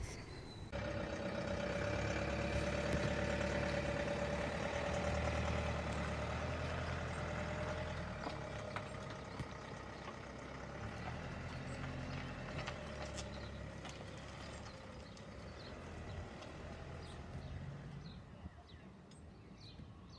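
Renault Master camper van's engine running as the van pulls away and drives off, starting about a second in and growing fainter after several seconds as it moves away.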